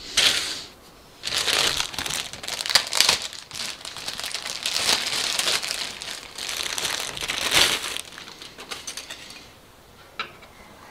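Thin clear plastic bag holding a model-kit parts sprue crinkling as it is handled, in several spells over about eight seconds, then a few light clicks near the end.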